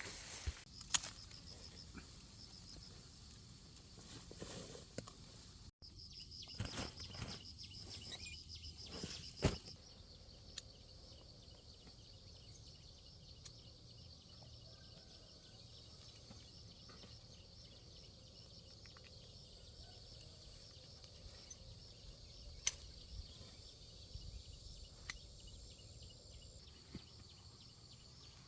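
Faint rural outdoor ambience: a steady high-pitched insect trill throughout, with scattered soft knocks and rustles in the first ten seconds and a few isolated ticks later.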